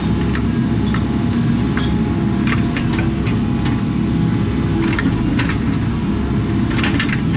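Diesel engine of a compact earthmoving machine running steadily under load, with scattered short metal clanks and knocks as the machine works loose backfill.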